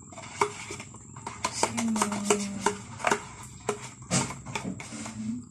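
A metal spoon scraping out a carton of cream and tapping it against the pan's edge, with a wooden spatula knocking in the pan: irregular clicks and knocks.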